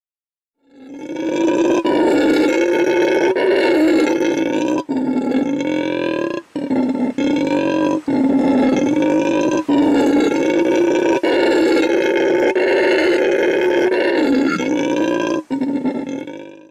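A loud, long drawn-out animal call at a steady pitch, breaking off briefly several times before going on.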